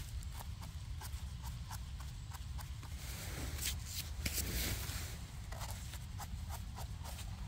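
Rustling and small crackles of dry forest-floor litter, leaves and twigs being stepped on or handled, with a denser rustle a little past halfway, over a steady low rumble.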